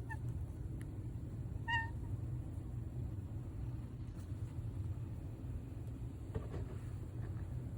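Pet toucan giving one short, gentle honk about two seconds in, with a fainter one right at the start, over a steady low rumble.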